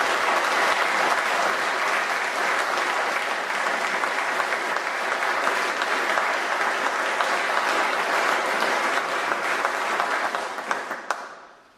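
Audience applauding: steady clapping for about ten seconds that dies away near the end.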